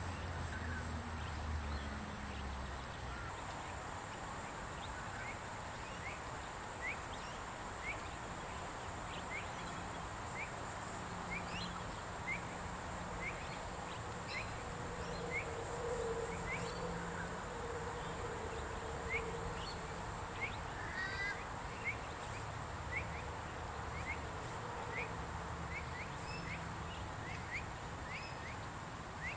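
A bird repeating short rising chirps, about one a second, over steady outdoor background noise.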